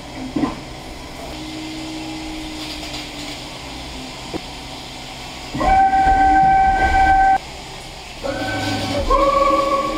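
Five-axis mill-turn machine milling a two-cylinder crankshaft under flood coolant: a steady hiss and hum, then a bit past halfway a loud, steady pitched whine from the cutter in the cut for almost two seconds that cuts off suddenly. Near the end the whine returns at a different pitch.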